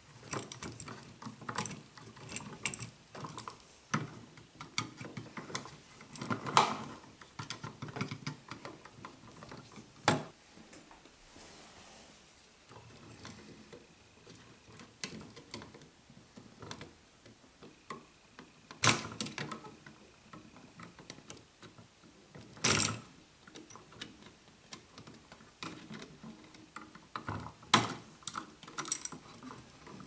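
Scattered small clicks, taps and rattles of a double light switch, its wires and a screwdriver and pliers being handled while terminal screws are loosened and wires moved, with several louder sharp clacks.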